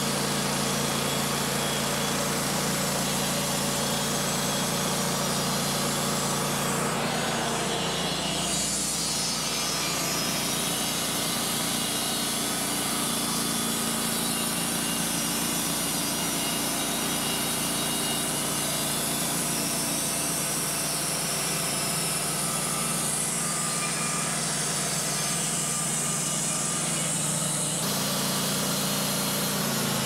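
Wood-Mizer portable band sawmill running steadily, its band blade cutting lengthwise through a maple log. The sound changes about eight seconds in and again near the end, as the blade works through the cut.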